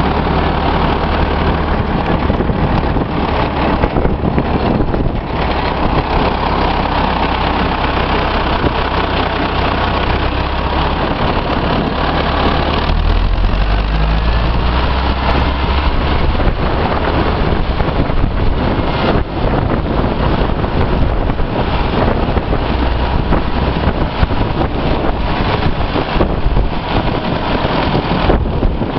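Deutz 6005A tractor's air-cooled four-cylinder diesel running steadily under way, heard from the driver's seat. The engine note shifts lower about halfway through.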